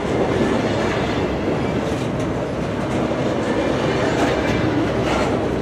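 Container cars of a long CSX intermodal freight train rolling past, a steady noise of steel wheels on the rails with a few faint clicks.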